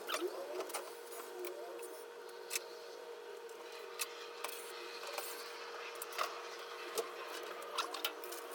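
Hand tools working on electrical wiring: irregular sharp clicks and snips, a dozen or so spread unevenly, over a faint steady hum.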